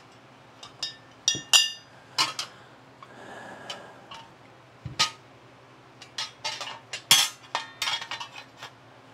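Metal dolly frame pieces clinking and knocking against each other as they are handled and set down, a string of irregular clanks with one piece ringing briefly about a second and a half in.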